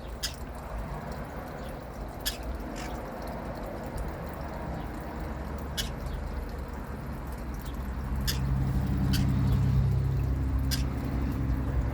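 Scattered sharp clicks and taps from a pet parrot moving about its cage, over a low background hum. About eight seconds in, a steady low drone, like an engine, comes up and stays louder.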